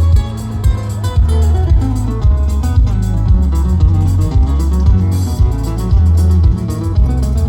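Live band playing an instrumental passage of a ballad: plucked and strummed guitar over a heavy bass line, with no vocals.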